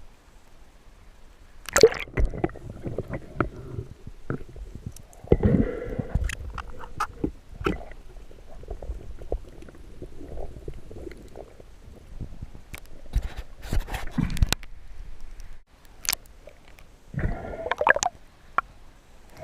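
Muffled underwater gurgling and sloshing of water with scattered clicks and knocks, rising in several louder bursts.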